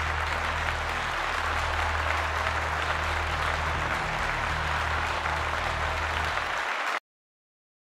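An audience applauding steadily over a low hum, cut off abruptly about seven seconds in.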